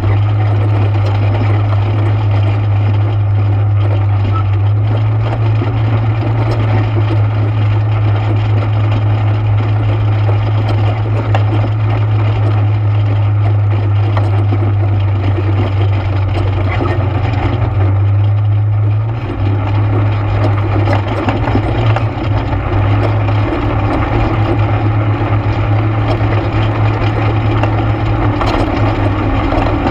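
An ATV engine running steadily while riding. Its low note changes and turns rougher a little after halfway through.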